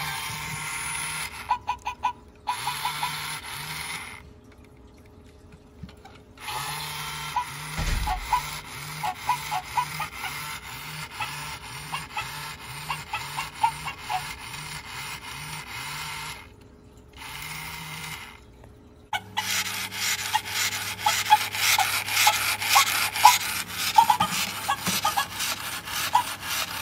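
Hands handling the opened plastic shell and gear mechanism of a Poo-Chi robot dog: rapid irregular plastic clicks and rubbing, broken into several short pieces by abrupt cuts.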